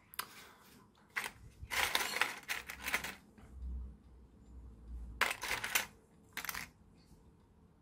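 Small hard 3D-printed plastic propellers and gears clicking and clattering against each other and the plastic tub as hands rummage through them, in several short bouts.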